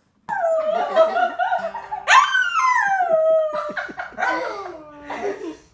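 A small fluffy dog howling in a run of long wavering howls that slide down in pitch. The loudest starts about two seconds in, rising sharply and then falling slowly.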